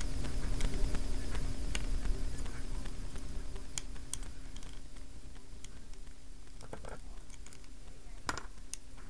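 Small plastic toy parts clicking and tapping as they are handled, pulled apart and fitted together, with a low rumble of handling noise in the first few seconds.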